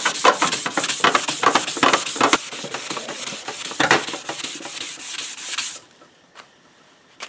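Hand-sanding a welded bronze sheet, back-and-forth scraping strokes about three a second, to wipe out grinding marks and even the surface. The sanding stops about six seconds in.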